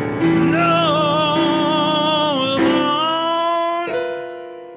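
Live song: a singer holds long notes with vibrato over sustained keyboard chords, and the sound fades away near the end.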